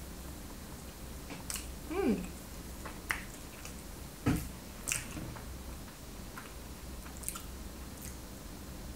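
A person biting and chewing a chocolate-glazed donut, with scattered small wet clicks and smacks of the mouth. About two seconds in comes a short hum that falls in pitch, and a low steady hum sits underneath.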